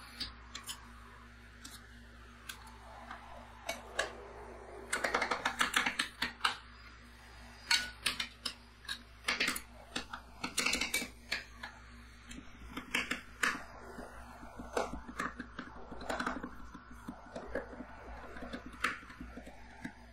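Two metal spatulas chopping and scraping crushed biscuits and cream on a stainless-steel ice-cream-roll cold plate: quick metallic taps and clicks, with a fast run of chopping about five seconds in. A low steady hum runs underneath.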